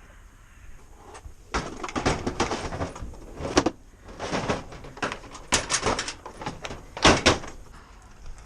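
Clattering knocks and scrapes of gear being handled at a work truck and a door being slid and shut, the loudest knocks coming about seven seconds in.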